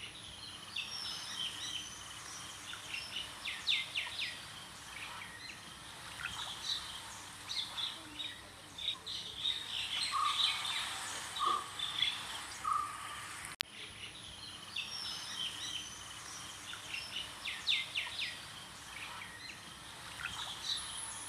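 Several birds chirping and trilling over a faint steady outdoor hiss, with short high calls and a few brief lower whistled notes. About two-thirds of the way through there is a sharp click, after which the same stretch of birdsong seems to repeat.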